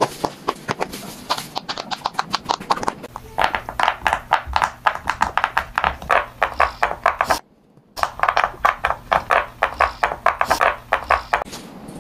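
Bubbles of silicone pop-it fidget toys being pressed in by hand, one after another in quick succession: a fast stream of soft pops and clicks. It breaks off for about half a second partway through.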